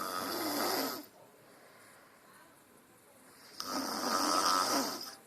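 A sleeping man snoring: two long, rasping snores, one at the start and another about three and a half seconds later, with quiet breathing between.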